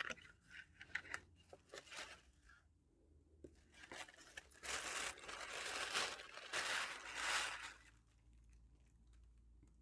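Light clicks and taps of items being handled, then from about four seconds in several seconds of crinkling and rustling packaging, dying away near the end.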